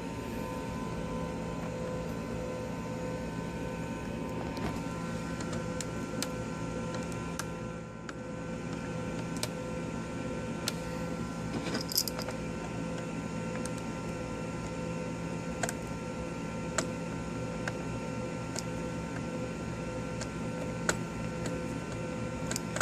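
Steady background hum with a few fixed tones, and occasional small clicks of a screwdriver and tiny M2 screws being worked out of a laptop's case, roughly one every second or two.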